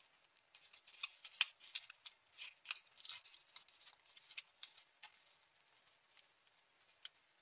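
Folded paper crackling and crinkling as hands flex and refold a small origami paper puzzle. It is a quick, irregular run of crisp clicks that stops about two-thirds of the way through.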